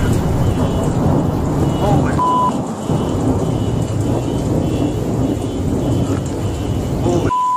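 Loud, continuous rumbling noise with a hiss over it. A short, steady one-pitch beep sounds about two seconds in and again near the end.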